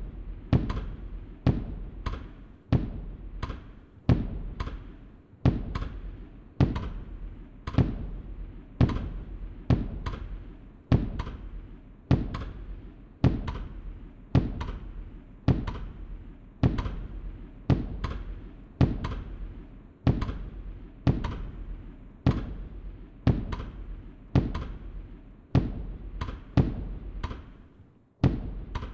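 Fireworks going off one after another, a sharp bang about once a second, each dying away before the next.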